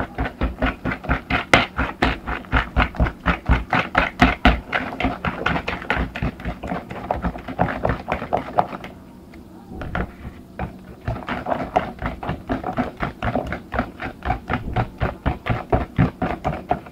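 Hand-beating eggs and sugar in a mixing bowl: the utensil clicks against the bowl in a rapid, even rhythm of several strokes a second. The beating pauses for about a second just past the middle, then goes on.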